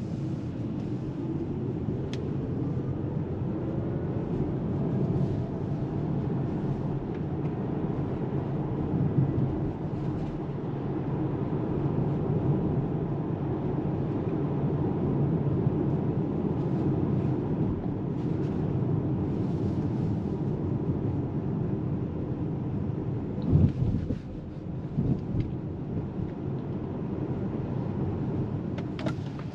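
Road and tyre rumble heard inside the cabin of a Polestar 2 Long Range Dual Motor electric car driving at town speed, steady throughout, with a faint rising whine in the first few seconds. A single thump about 23 seconds in.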